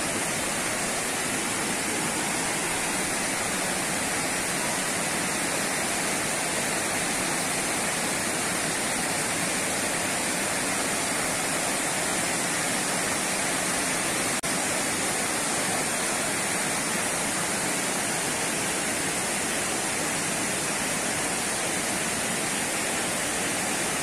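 Rushing water of rocky river rapids below a waterfall, a steady, even noise of white water pouring over stones.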